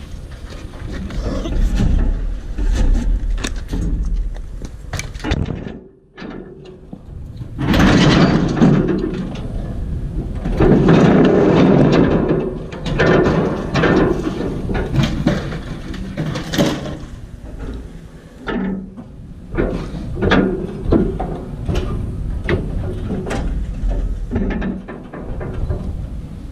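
Scrap metal being pulled off a truck bed and dropped on the ground: repeated clanking, scraping and knocks, heaviest about 8 to 13 seconds in.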